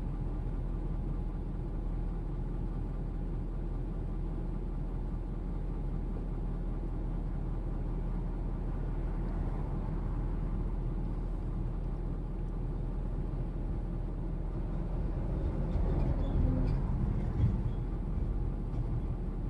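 Vehicle engine idling, heard from inside the cabin as a steady low hum. About three-quarters of the way in a few louder, uneven knocks and rumbles rise over it for a couple of seconds.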